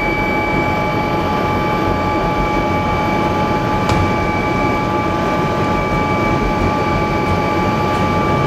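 MD 902 twin-turbine helicopter in flight, heard from inside the cockpit: a steady turbine whine of several held high tones over a constant rush of rotor and airflow noise.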